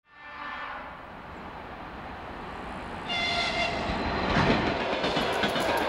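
A train horn sounds as the audio fades in, over the rumble and rattle of a train. About three seconds in, a louder horn blast on a different chord comes in.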